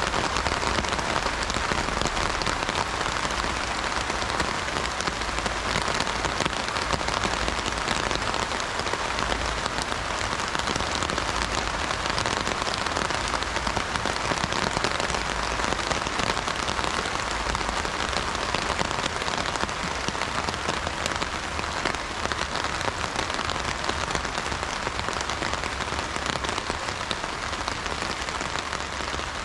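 Heavy rain drumming steadily on an umbrella canopy overhead, a dense, even patter of drops.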